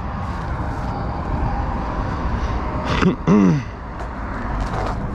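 Steady rumble of road traffic crossing the bridge. About three seconds in, a person makes one short vocal sound that falls in pitch.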